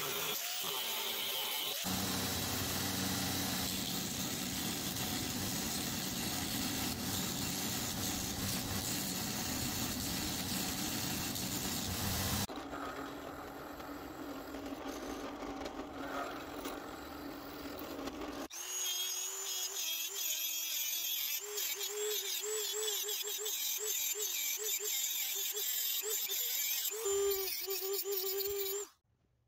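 Angle grinder with a cut-off disc cutting steel for about twelve seconds, then a drill boring through a steel plate, then a rotary tool with a small cut-off wheel whining steadily as it cuts a slot in the steel guard plate. The rotary tool stops abruptly near the end.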